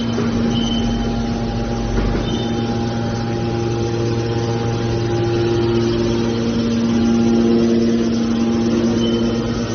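Hydraulic mobile scrap car baler's power unit running steadily: an engine and hydraulic pump giving a constant hum, with a short high squeak near the start and again near the end.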